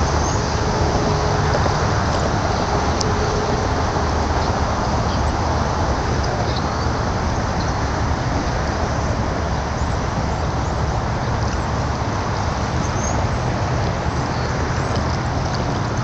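Steady rumbling background noise throughout, with faint short high chirps now and then.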